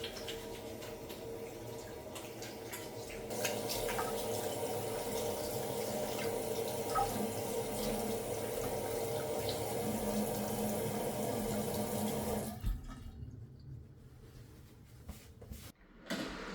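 Water running from a kitchen or bathroom tap into a sink. The flow gets stronger about three seconds in and is shut off suddenly a few seconds before the end, followed by a few faint knocks.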